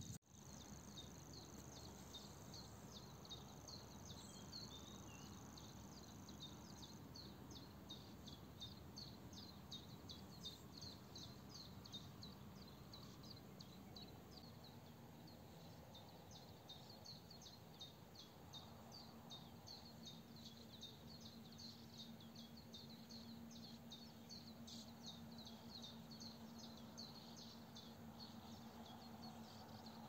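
Faint dawn riverbank ambience. A steady high trill gives way, about seven seconds in, to a long run of short high chirps at about two a second. A faint low hum comes in about halfway.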